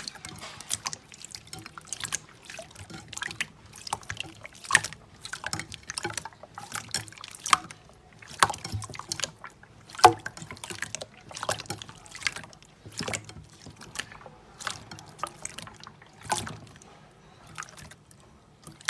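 Clear water slime squished and pressed by hand: irregular wet clicks and squelches, a few a second.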